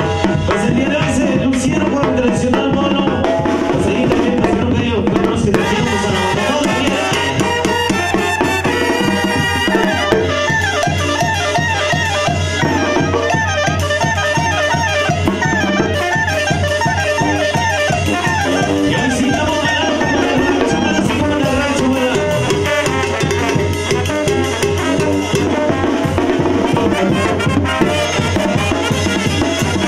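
Live Mexican banda playing: clarinets, trumpets and trombones carry the melody over a sousaphone bass, with snare drum, tambora bass drum and cymbal keeping a steady beat.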